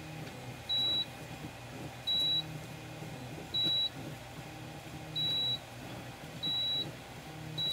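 Multimeter continuity beeper giving five short, high, identical beeps, evenly spaced about one and a half seconds apart, as each keyboard key switch is pressed and closes. Each beep signals a key making contact: the keys with new 3D-printed stems are working.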